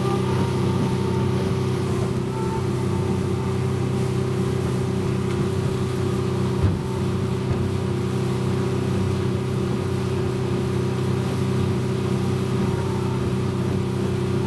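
250 hp Yamaha outboard running steadily at about two-thirds throttle, trimmed out, with the boat underway at speed. A single short thump comes about seven seconds in.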